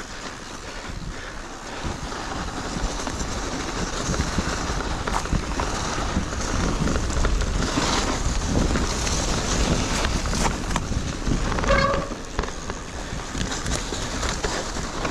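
Wind noise on an action camera's microphone during an electric mountain bike ride, with the bike knocking and rattling over rough trail. A brief tone sounds near the end.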